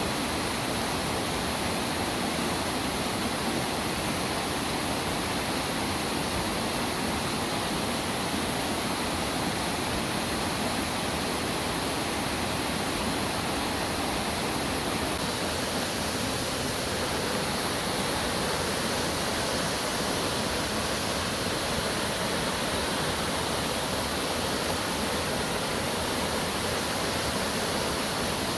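Waterfall rushing with a steady, unbroken roar of water.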